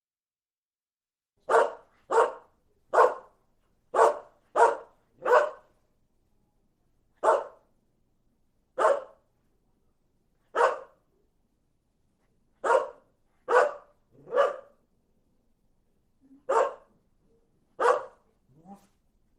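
A dog barking: about fourteen single sharp barks, some in quick runs of two or three, with silence between them. A short, fainter, lower sound follows the last bark near the end.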